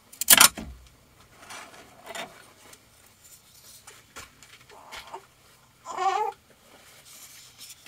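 A loud, brief clunk about half a second in as the printed part is taken off the 3D printer's textured build plate, followed by faint handling noise. About six seconds in there is a short, whining vocal sound.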